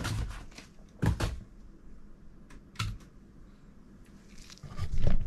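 Scattered clicks of a computer keyboard and mouse, a handful of separate strokes, with a heavier knock near the end.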